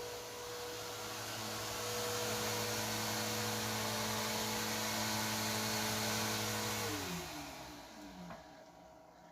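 A small electric motor appliance running steadily with a hum and a wide hiss, then switched off about seven seconds in, its pitch falling as it spins down.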